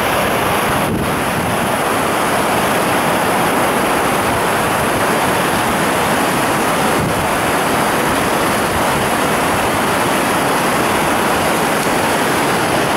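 Rushing snowmelt mountain stream: a steady, loud rush of white water tumbling over rocks.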